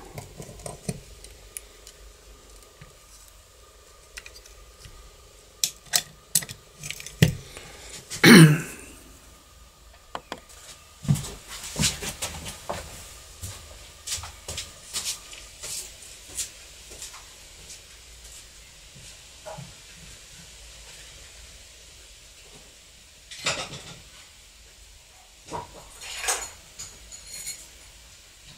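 Scattered clicks and clinks of the metal parts of a garage-door lock being handled and fitted, with one louder, short sound about eight seconds in.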